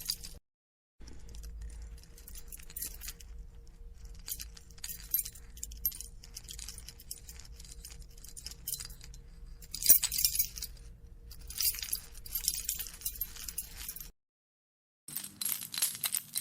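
A bunch of metal keys jangling as they are shaken and handled, in irregular bouts of a second or two. There are two short silent gaps, one near the start and one near the end, and the jangling starts again after each.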